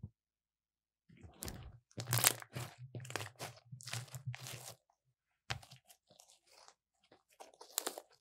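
Glossy violet slime being stretched, folded and pressed by hand, making sticky crackling and popping sounds. The crackles come in a dense run from about two to five seconds in, then in scattered bursts near the end.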